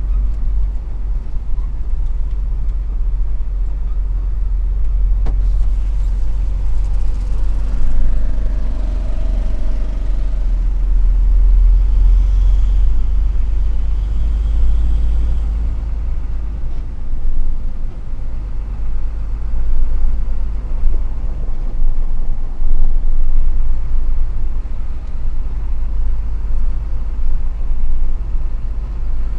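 Truck engine and tyres on a gravel road rumbling low and steady, heard from inside the cab.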